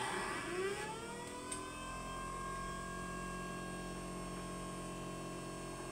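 Brushless motor driving a VCR capstan motor as a generator, spinning up after switch-on. Its whine, with several overtones, rises in pitch over the first couple of seconds as it comes up to speed, then holds steady over a low steady hum.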